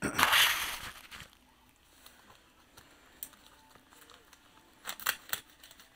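A Priority Mail mailing envelope being handled on a wooden table: a loud rustling slide for about the first second, then faint handling noise and a few short sharp clicks near the end.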